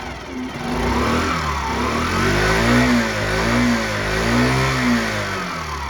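Suzuki Birdie 50 (BA43A) scooter-style motorcycle's 50cc single-cylinder engine being revved up and down several times with the throttle, dropping back toward idle near the end.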